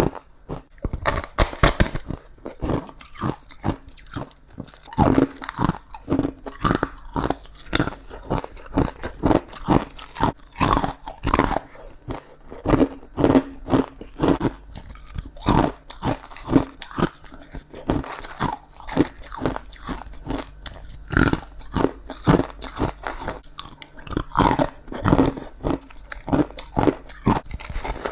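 Close-up crunching of humidifier-top ice being bitten and chewed: a continuous run of sharp, crisp crunches, about two to three a second.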